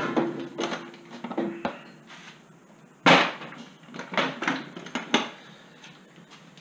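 A metal ammo-can toolbox and the tools in it being handled: a string of metal clanks and knocks, the loudest about three seconds in.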